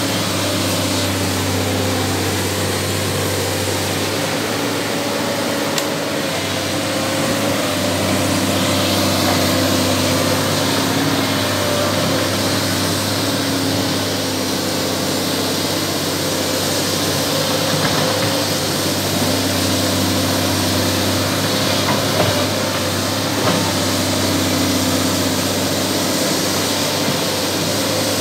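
Excavator running continuously, with a steady low hum and a few tones above it that shift slightly in pitch now and then.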